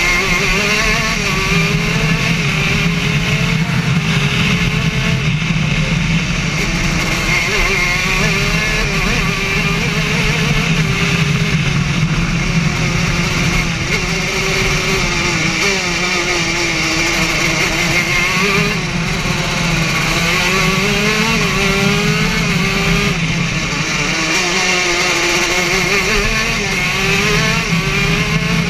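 Racing kart engine heard from on board during a flying lap, its pitch climbing under acceleration and dropping off into each corner, over and over.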